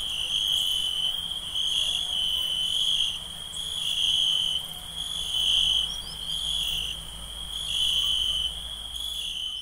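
Night chorus of crickets chirping, a high steady chirring that swells and eases about once a second.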